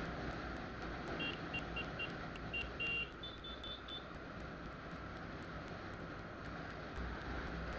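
Steady road and wind noise from a vehicle driving along a road. About a second in comes a run of short, high electronic beeps, and the last four are at a higher pitch.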